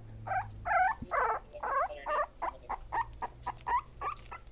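Young puppy whimpering in a quick string of short high cries, longer calls at first, then shorter ones about three a second.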